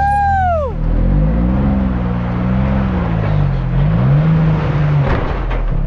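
Side-by-side UTV engine revving unevenly under load as it claws up a rock ledge. Near the start a brief high whine rises and falls. About five seconds in there is a rougher, harsher burst.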